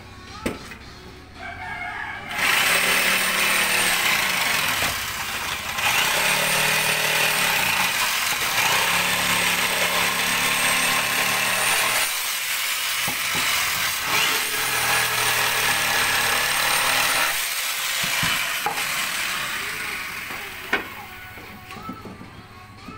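Electric jigsaw sawing through a curved wooden plank: the blade runs with a steady high whine, starting about two seconds in, stopping briefly about halfway and again a few seconds later, then winding down near the end.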